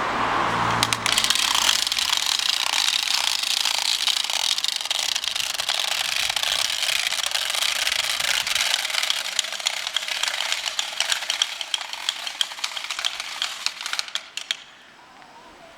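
Wooden Easter rattles (Ratschen) being worked, a loud dense rattling and clacking that stops suddenly near the end. It is the rattling that stands in for the silent church bells between Good Friday and Easter Sunday.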